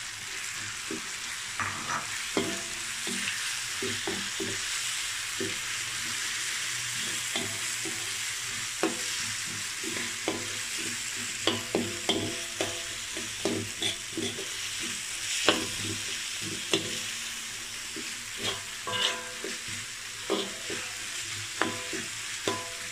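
Diced potatoes and onions with chilli paste sizzling in oil in a wide metal wok, stirred with a spatula that scrapes and clinks against the pan many times at an irregular pace.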